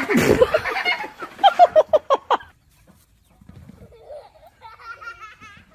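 Animal calls: a burst in the first second, then a quick run of about six short calls, and after a pause some quieter wavering trills near the end.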